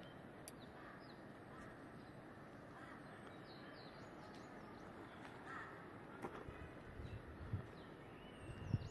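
Faint outdoor ambience with distant birds calling now and then, and a few soft knocks near the end.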